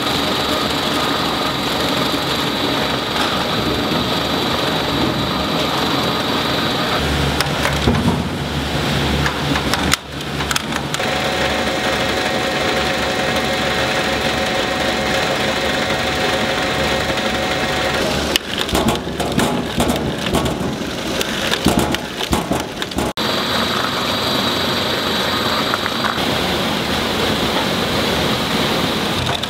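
Produce-packing conveyor machinery running: a steady mechanical din that shifts in character every few seconds, with a motor whine through the middle and a stretch of irregular knocking and rattling later on.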